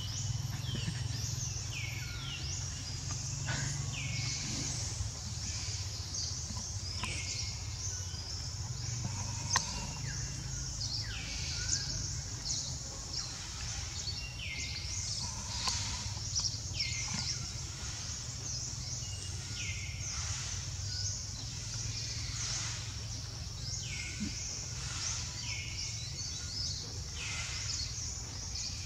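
Outdoor forest ambience: a bird giving short calls that slide down in pitch, repeated every second or few, over a steady high hiss and a low rumble.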